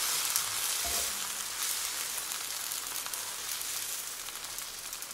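Fenugreek dosa batter sizzling on a hot skillet while a ladle spreads it. The sizzle slowly dies down, with one soft knock about a second in.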